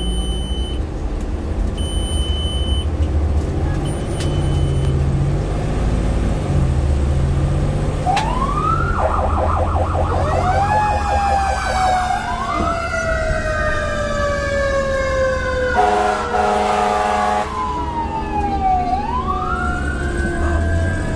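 Fire truck engine running, heard from inside the crew cab, with a few short high beeps in the first few seconds. About eight seconds in the siren winds up and wails up and down, with a quick yelping stretch, and a horn blasts for a second or two partway through.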